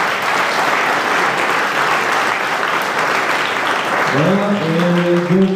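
A large crowd applauding with steady clapping; a man's voice comes in about four seconds in.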